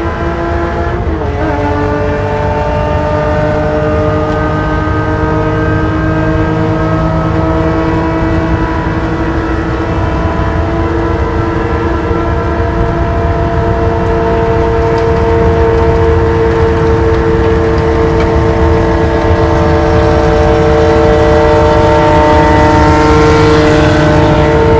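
Porsche race car's engine at full throttle, heard from on board at high speed. The engine note is steady, with a short break and change in pitch about a second in. It then holds and climbs slowly, growing a little louder near the end.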